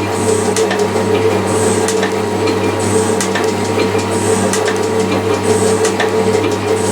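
Metal shaper taking a fine finishing cut on a steel block: a steady motor hum, with the ram stroking back and forth in a regular cycle a little over once a second and the tool scraping across the work on each pass.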